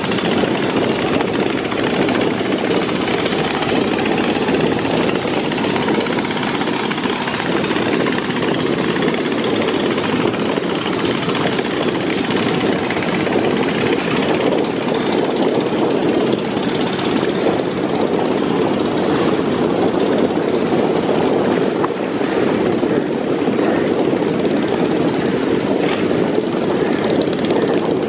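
A river passenger launch's diesel engine running hard at cruising speed, giving a steady, rapid low throb with no let-up.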